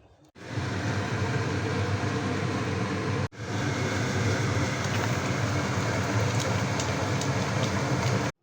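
Steady loud rumbling noise, like a moving vehicle, broken by a sudden cut about three seconds in and stopping abruptly near the end.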